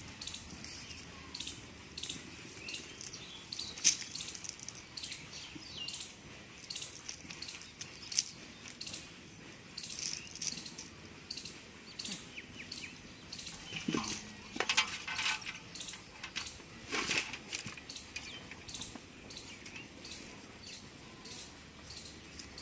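Small bird chirping over and over, short high calls about two a second. Two louder, fuller sounds come past the middle.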